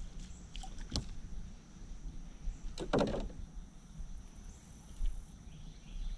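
A small bluegill landed and unhooked by hand in a canoe: a sharp click about a second in, then a brief scuffle near the middle as the fish is brought in and held, over a low steady rumble.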